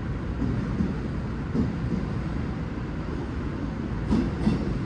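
Steady low rumble of a V/Line VLocity diesel railcar idling at the platform, with two brief knocks near the end.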